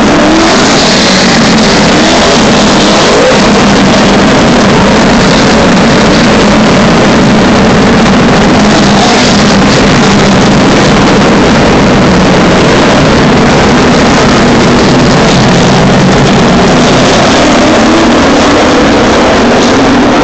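A pack of NASCAR stock cars with V8 engines racing past at speed: many engines run at once, loud and unbroken, their pitches overlapping and sliding up and down as the cars go by.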